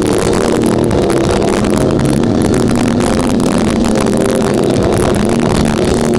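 Death metal band playing live at full volume: heavily distorted guitars and bass with drums, a dense, unbroken wall of sound.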